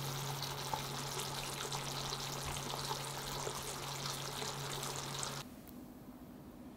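Mapo-style ground pork and garlic chive sauce simmering in a frying pan: steady bubbling with many small crackles and pops, over a low steady hum. It cuts off abruptly about five seconds in, leaving only a faint quiet background.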